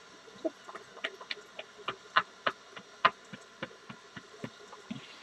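A string of light, irregular clicks and taps, two or three a second, over faint background hiss.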